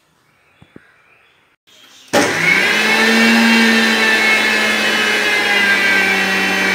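Electric mixer grinder switched on about two seconds in, spinning up and then running with a steady whine as it grinds ginger, shallots and black pepper dry, without water. A couple of faint clicks come before it starts.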